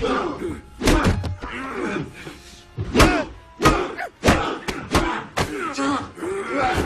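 Staged fight sound effects: about a dozen hard punch and body-impact hits in quick succession, with men grunting between them, over a film music score.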